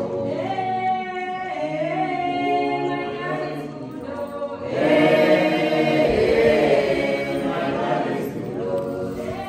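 A choir singing a cappella, several voices in harmony, swelling louder about five seconds in.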